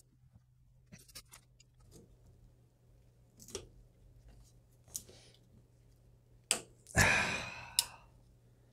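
Bicycle chain links clicking lightly as the two chain ends are handled and brought together for joining, with a louder metallic rattle about seven seconds in.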